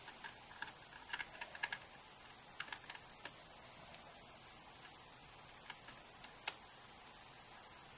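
Faint, scattered small clicks and taps of a screwdriver's tip on a tiny Torx screw in an iPod hard drive, using a screwdriver that doesn't properly fit the screw. The clicks come in a cluster over the first few seconds, with a couple more later on.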